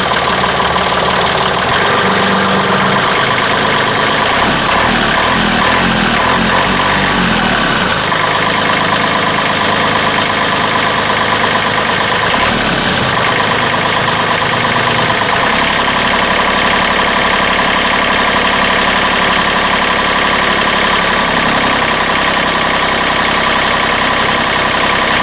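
John Deere 2032R compact tractor's three-cylinder diesel engine idling steadily just after being started, running on freshly changed oil, with a few slight shifts in tone.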